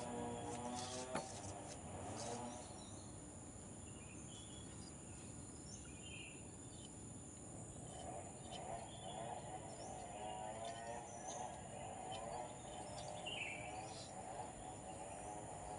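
Quiet outdoor ambience: scattered short bird chirps over a steady high insect drone. Faint wavering tones sit underneath, clearest in the first two seconds and again in the second half.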